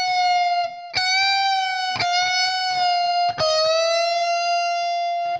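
Electric guitar playing long sustained single notes high on the neck, bending from the fourth up to the flat fifth in C minor. A fresh note is picked about a second, two seconds and three and a half seconds in, each rising a little in pitch as it is bent.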